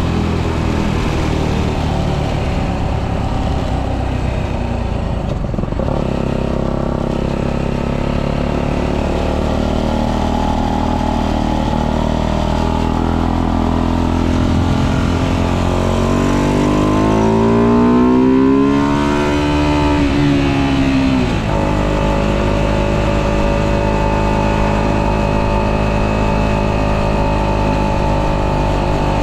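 Tuned 125cc motorbike engine, with modified intake and exhaust and ignition advanced to 42 degrees, running under way. Its note climbs under acceleration a little past halfway, eases off, then drops sharply as the throttle closes, and runs steady again near the end.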